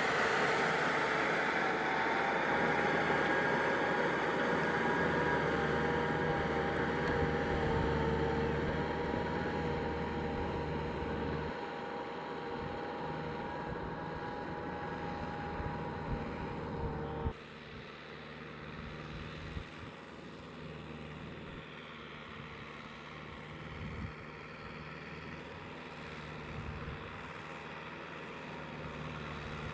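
Small farm tractor's engine running steadily under load as it ploughs through deep mud. About halfway through the sound drops suddenly to a quieter level and carries on.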